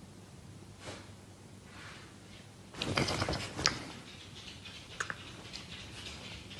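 Miniature pinscher giving short, rough barks, the loudest about three seconds in, with a few faint clicks after.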